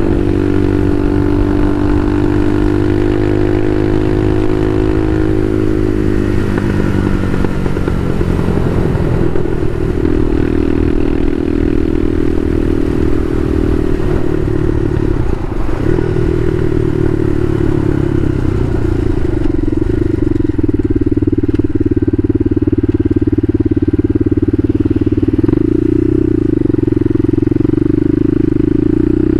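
Bashan Motomax 250 supermoto's engine running while being ridden, its note shifting with the throttle: it falls about six seconds in and climbs again near the end.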